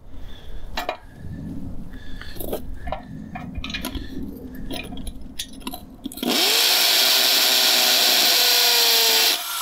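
Bauer 7.5 amp corded hammer drill starting about six seconds in and hammer-drilling into a concrete driveway for about three seconds, its motor tone rising and then holding steady before it stops suddenly. Before that there are quieter knocks and clicks as the drill is set in the hole.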